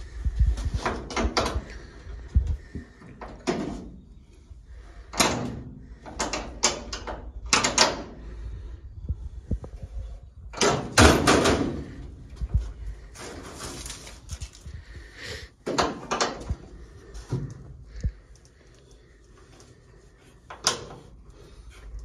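Irregular knocks, thumps and clatter from hands-on work on a wooden-framed rabbit cage sheathed in corrugated metal and wire mesh, the loudest thump about eleven seconds in.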